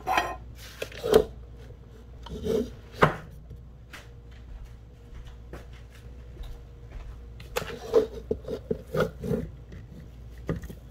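Hand and kitchen items handled on a floured wooden board: a hand rubbing flour across the board with a few single knocks in the first three seconds, then a quick run of knocks and clatters for about two seconds near the end.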